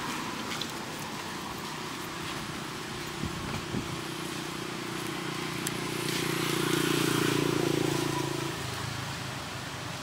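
A motor vehicle's engine humming steadily as it passes, growing louder to a peak a little past the middle and then fading out suddenly.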